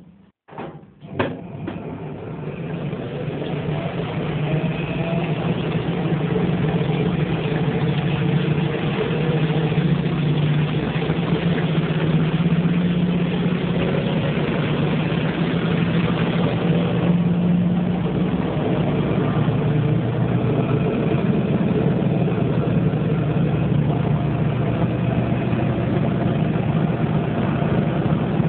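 Hoover twin tub washing machine switched on: a few clicks, then its motor starts and builds up over the first few seconds to a steady running hum.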